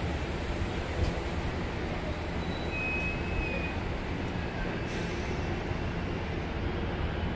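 Amtrak Pacific Surfliner bilevel passenger cars rolling slowly past: a steady low rumble of steel wheels on rail, with a sharp click about a second in and a brief faint wheel squeal about three seconds in.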